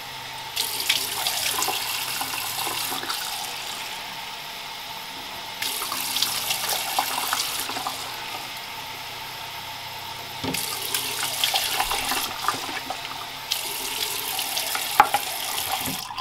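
Bathroom sink tap running steadily, with several louder splashing stretches as a plastic cup is filled and water is poured over a child's head into the basin to rinse shampoo out of his hair.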